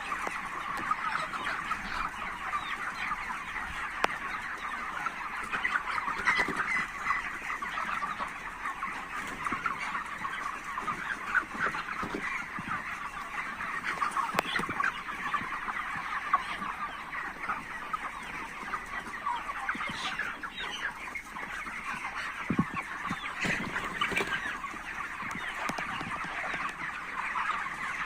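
A flock of chickens in a poultry house, many birds clucking and chattering at once in a steady, continuous din.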